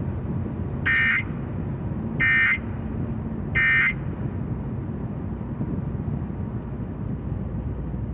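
Emergency Alert System end-of-message data code from the AM car radio: three short bursts of data tones about a second apart, marking the end of the alert. Steady car road noise continues underneath in the cabin.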